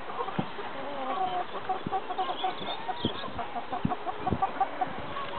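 Domestic hens clucking: a run of short, even notes, about four a second.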